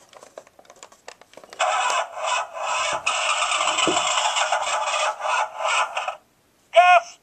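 Large Lightning McQueen talking toy car playing a sound effect through its small built-in speaker: a thin, hissing rush that comes and goes in spurts for about four seconds and stops abruptly, followed near the end by a short pitched chirp. A few light plastic clicks from handling the toy come first.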